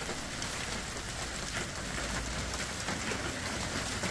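Steady rain falling on pavement and parked cars: an even hiss with many small drop impacts.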